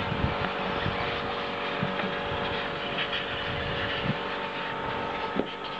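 Radio-controlled 2wd electric off-road buggies racing around a dirt track, a steady mix of motor whine and tyre noise from several cars.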